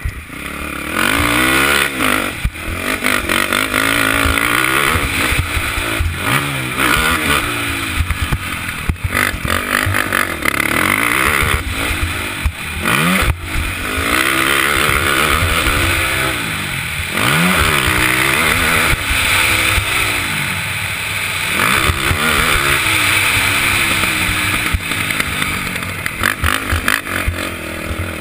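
KTM 450 SX ATV's single-cylinder four-stroke engine under hard riding, its pitch climbing and dropping over and over as the throttle is opened and shut through the gears. A few sharp knocks come through now and then.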